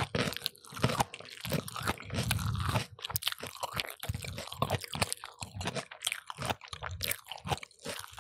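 Close-miked crunching and chewing of fried chicken: irregular crisp crunches with chewing sounds in between, eaten slowly for the sound.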